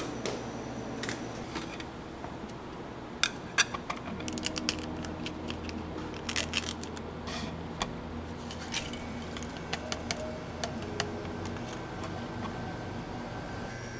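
Crinkling and sharp clicks of a small plastic packet of dried chrysanthemum tea being opened and handled, in scattered clusters over a steady low hum.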